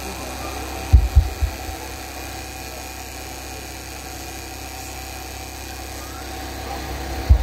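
Steady low hum with a faint steady tone above it, broken by a few dull low thumps about a second in and again near the end.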